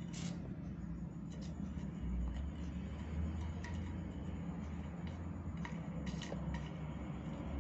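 Scattered light clicks and taps as a kitten bats a plastic drinking straw across a tiled floor, over a low steady rumble.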